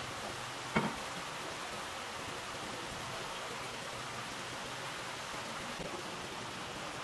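Steady background hiss, with one short knock on the cutting board about a second in and a few faint light taps near the end, as a knife slices a raw yellowtail fillet.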